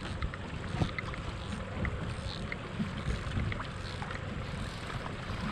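Wind on the microphone and water lapping against the hull of a small fishing boat, a steady rushing with a low rumble and a few faint ticks.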